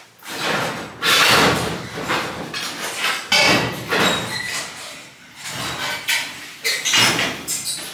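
Workshop clatter: an irregular run of knocks, scrapes and bangs as parts are shifted about and a motorcycle wheel is pulled out from among them. Sharp bangs come about a second in, past three seconds and near seven seconds.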